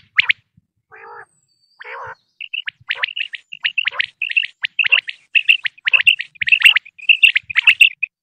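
Common quail calling: sharp, quickly repeated high chirps that thicken into a dense run of overlapping calls, preceded by two lower, raspy notes about one and two seconds in.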